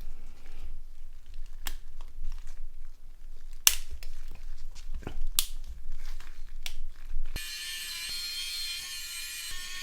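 Plastic parts of a Nokia 5610 XpressMusic phone clicking and snapping together as it is reassembled by hand: several sharp separate clicks. About seven seconds in, a steady electronic tone with many high overtones starts and holds.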